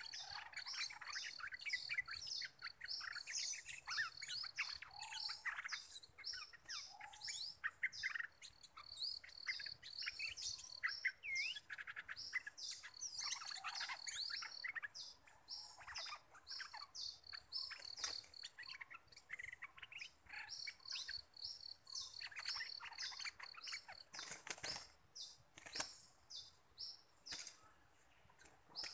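Stripe-throated bulbuls singing and calling back and forth, with varied whistled phrases over a fast run of high, repeated chirps that pauses about two-thirds of the way through.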